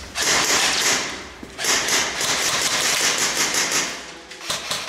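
Rustling of camouflage netting brushing against the microphone, in two long bouts of hiss-like noise, with a few sharp knocks near the end.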